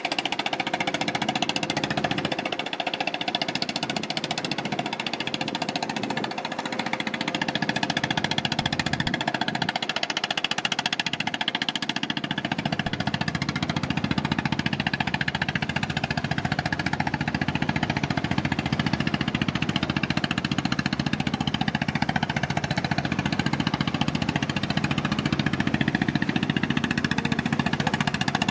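Fishing boat's engine running steadily with a knocking beat. Its low end grows fuller about twelve seconds in.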